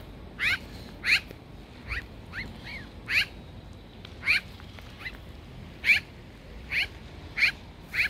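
Black-billed magpie giving a series of about ten short rising calls, spaced irregularly, half a second to a second and a half apart.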